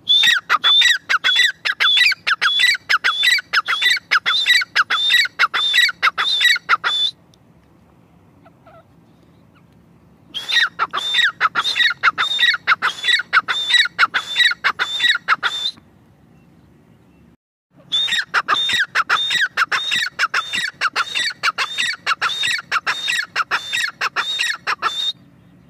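Grey francolin calling: a loud, rapidly repeated series of high, ringing notes in three long bouts, each several seconds long, separated by pauses of two to three seconds.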